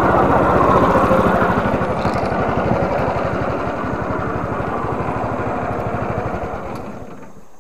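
Small boat engine running steadily, with water rushing along the hull, then dying away about seven seconds in.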